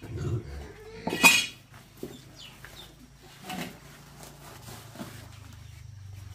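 A loud, sharp metallic clank about a second in, as a metal scoop knocks while shovelling chopped greens on a woven sack, followed by softer rustling and knocks as the sack is gathered up.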